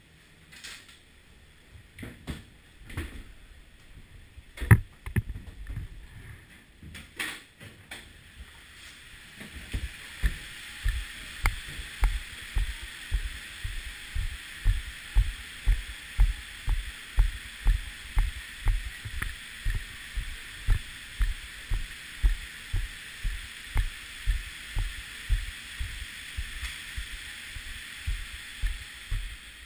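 Ski boots and ski gear clattering and knocking while getting out of a gondola cabin, one loud knock about five seconds in. Then heavy ski-boot footsteps on a hard floor at a steady walking pace, a bit under two a second, over a steady hiss.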